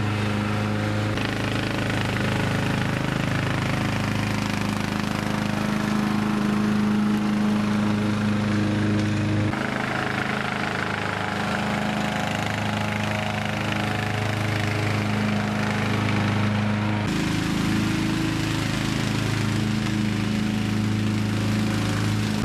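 Partner P145107H ride-on lawn tractor with its mower deck and grass bagger, engine running steadily under mowing load. Its tone changes abruptly a few times, about a second, ten seconds and seventeen seconds in.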